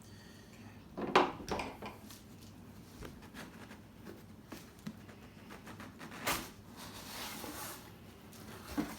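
MRE ration box and its plastic wrapping being opened and handled. There is a sharp knock about a second in, then a rustling, tearing stretch from about six to eight seconds.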